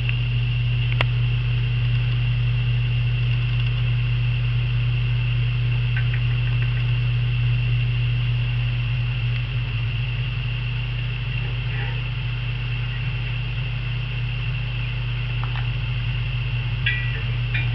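A steady low hum with a thin high whine over it, unbroken throughout, and a few faint clicks near the end.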